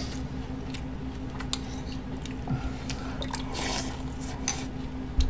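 A person eating Raisin Bran with milk: wet chewing and slurping, with short clicks of a metal spoon against the bowl scattered throughout.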